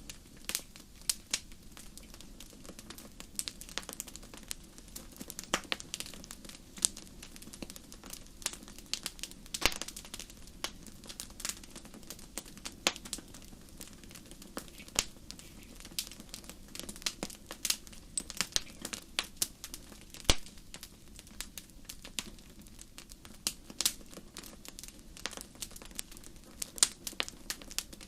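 Crackling campfire: wood popping and snapping in frequent, irregular sharp cracks over a steady low rush.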